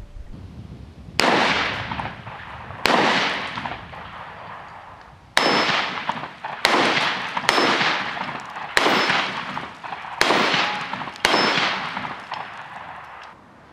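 UTAS XTR-12 12-gauge semi-automatic shotgun firing eight shots, each a sharp report with a long decaying tail. The first two are spaced out, and the last six come about a second apart. Some hits ring off the steel plate targets.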